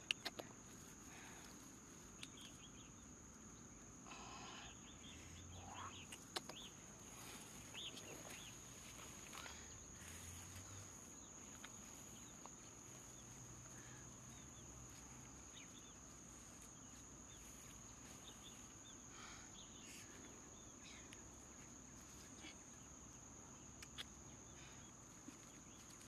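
Near silence: faint outdoor ambience with a steady high insect drone, a few faint bird chirps and occasional light rustles and ticks.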